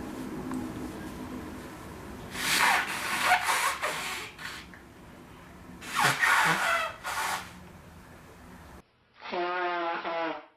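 A person blowing their nose hard twice, about two seconds in and again about six seconds in, each blow a long noisy rush of air with some pitched honk in it. Near the end, a short pitched vocal sound.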